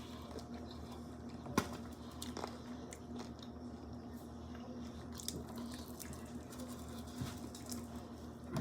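A person chewing and biting into food, with small scattered clicks and one sharper click about a second and a half in, over a faint steady hum.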